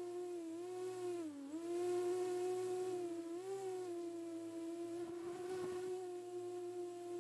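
A steady humming tone with overtones that dips briefly in pitch about a second and a half in and bends up slightly again a couple of seconds later, with a short scratchy rustle around five seconds in.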